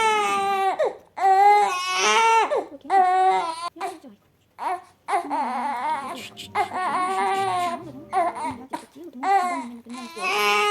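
Baby crying: a string of loud wailing cries, each about a second long, with a short pause about four seconds in.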